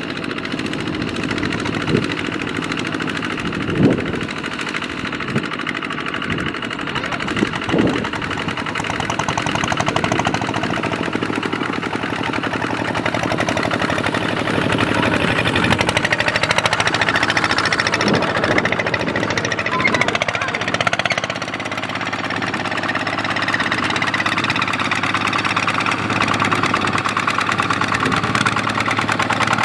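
Two-wheel walking tractor's single-cylinder diesel engine running steadily under load as it hauls a trailer of rice sacks through a muddy paddy, with a few sharp knocks in the first eight seconds.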